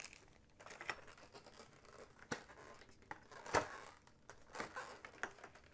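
Faint rustling and crinkling of plastic packaging with small scattered taps and clicks as the parts of a foil pen kit are handled, the sharpest click about three and a half seconds in.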